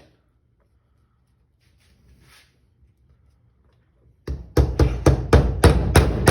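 After a few quiet seconds, a rapid series of hammer blows, about four a second, drives a drift against the stuck pivot pin of a Suzuki RV90 springer front fork to knock it out.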